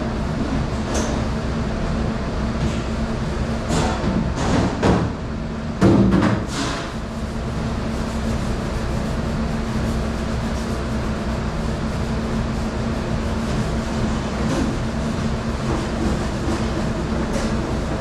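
Steady hum and rushing noise of commercial dish-room machinery, with a constant low tone. A few clatters and knocks come between about four and seven seconds in, the loudest near six seconds.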